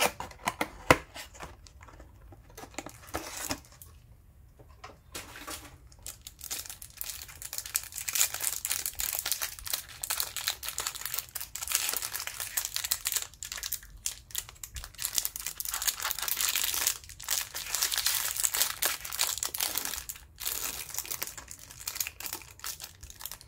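A cardboard trading-card hanger box is opened by hand with a sharp snap about a second in. Then the plastic wrapper round the card stack is torn open and crinkled, making dense crackling from about five seconds in with a few short pauses.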